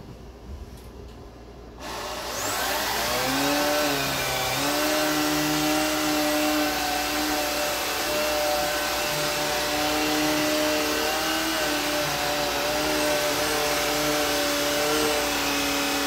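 Cordless stick vacuum switched on about two seconds in. Its motor whines up to speed, then runs steadily with a slight wavering in pitch as the motorized floor head is pushed over carpet.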